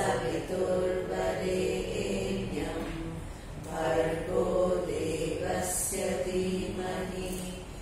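A woman's voice chanting a mantra-style prayer in long held notes, with a short break for breath about three and a half seconds in.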